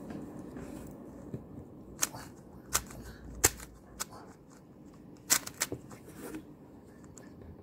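MoYu magnetic 3×3 speed cube being turned by hand, its plastic layers giving sharp clicks as the magnets snap each turn into place. The clicks come singly at first, then in a quick run of three a little past the middle.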